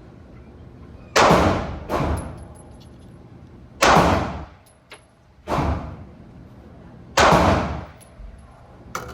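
Five handgun shots, irregularly spaced over several seconds, each sharp report followed by a short echoing tail.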